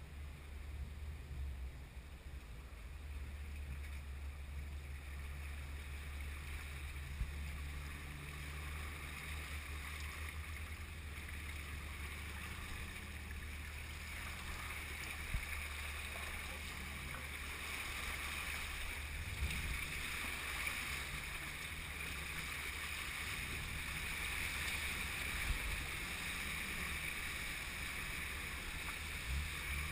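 Jeep Wrangler JK fording a river, heard from inside the cab: the engine runs with a steady low rumble while river water rushes and splashes against the body, with a few small knocks.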